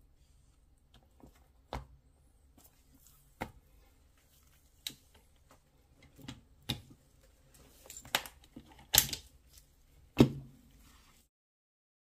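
Handling noise from a smartphone and its charging cable: about eight scattered knocks and clicks, the loudest two close together near the end.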